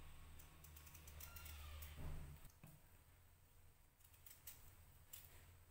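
Faint, irregular clicks of a small knife slicing a peeled raw potato lengthwise into slabs, the cuts made in the hand over a plastic cutting board.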